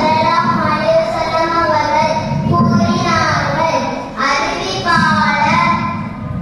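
A child's voice chanting in long, drawn-out melodic phrases, with short breaths between phrases about two and a half and four seconds in.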